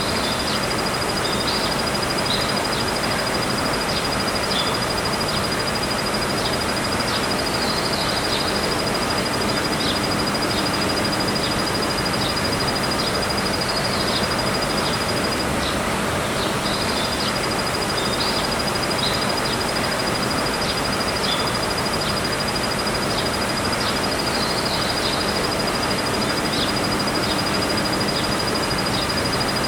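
Kuma-suzumushi cricket (Sclerogryllus punctatus) singing a continuous high-pitched trill, which breaks off for about a second halfway through, with short chirps scattered around it.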